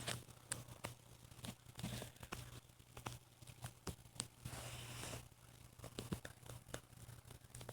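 Faint tearing and crinkling with scattered sharp clicks as the fan is pulled apart by hand, over a steady low hum.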